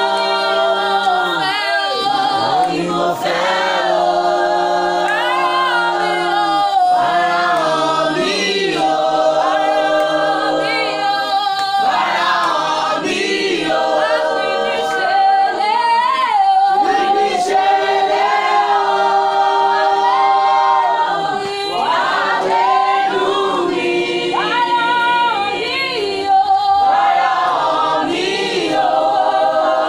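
A cappella choir singing, several voices holding and gliding between sustained notes in harmony, with no instruments.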